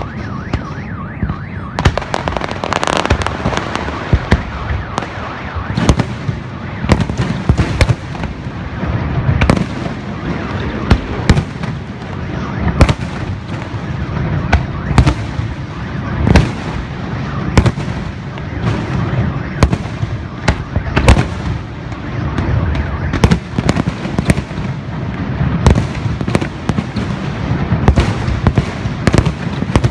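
Professional fireworks display: aerial shells bursting one after another in quick, irregular succession, often several bangs a second, over a continuous low background din.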